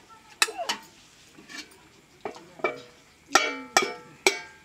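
Stainless steel dishes and a metal ladle clinking and knocking against a pan and plates: a run of sharp metallic clinks, a few of which ring briefly, the loudest group about three and a half seconds in.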